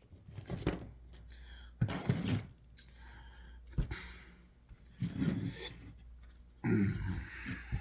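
Handling noise: about five short bursts of scraping and knocking as objects are moved and set down.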